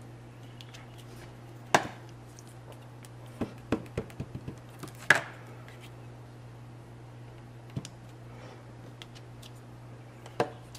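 A clear acrylic stamp block knocking and tapping against the card and tabletop as it is pressed down and lifted during stamping: several sharp knocks, the loudest about two and five seconds in, with a quick run of taps between them. A faint steady hum sits underneath.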